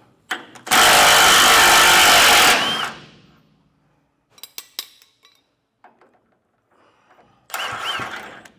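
Cordless Milwaukee Fuel impact wrench hammering on rusty trailer leaf-spring shackle bolts to break them loose: one loud run of about two seconds, a few metal clinks, then a shorter run near the end.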